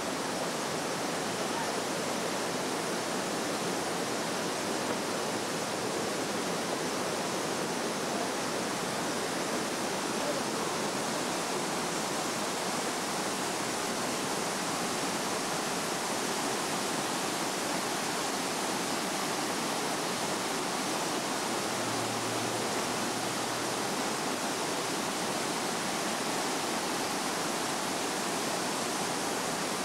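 Waterfall: a steady, unbroken rush of water cascading over rock ledges.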